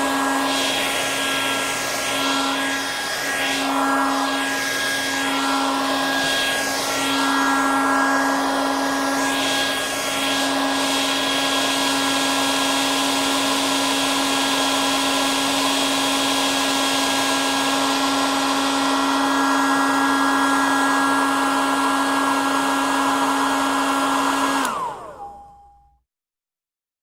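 Hair dryer running: a steady rush of air over a motor whine, the airflow wavering in the first ten seconds or so and then holding steady. About 25 seconds in it is switched off, and the whine falls away quickly into silence.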